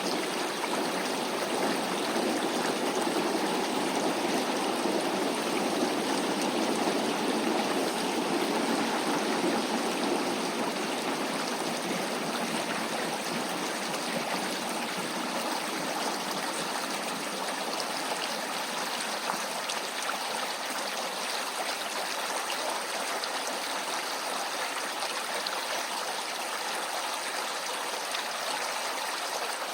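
Shallow city stream flowing steadily, with the low rumble of a passing commuter train mixed in for the first ten seconds or so, fading away as it goes.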